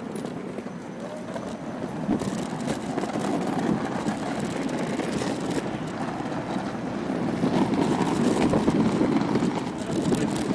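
Steady rough rumble of small hard wheels rolling over a paved bike path. It swells a little after about two seconds and is loudest near the end.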